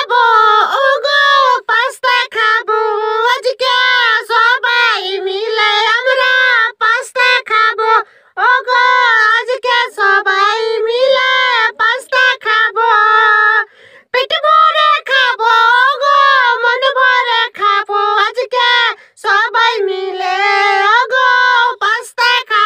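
A high-pitched voice like a child's singing a wavering tune in short phrases with brief breaks.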